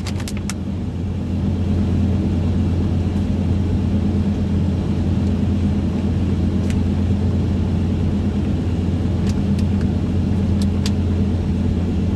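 Steady in-cabin road noise of a car cruising at highway speed: a low, even rumble of tyres and engine, with a few light clicks scattered through it.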